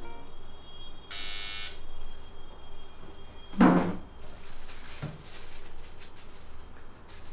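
Electric doorbell buzzing once for just under a second, about a second in, followed about two and a half seconds later by a short, louder sound.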